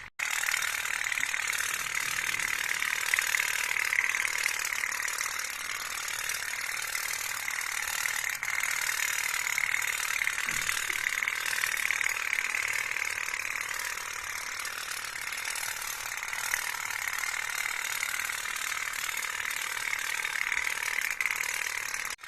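Toy pop-pop steam boat running, its heated boiler diaphragm putting out a fast, continuous metallic rattle.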